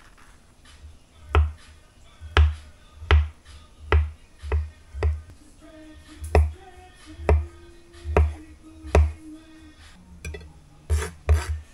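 Background music with a slow beat of deep thumps and a few held notes.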